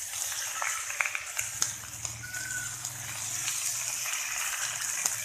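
Pieces of old hen sizzling in hot oil in a wok as a spatula stirs them, with a few sharp knocks of the spatula against the pan.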